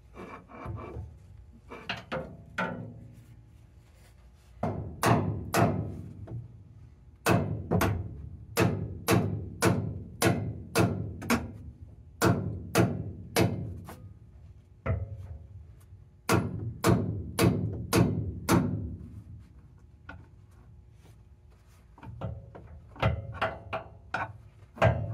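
Hammer blows on steel, each strike ringing briefly. The blows come in runs of quick strikes, about two a second, with pauses of a few seconds between the runs.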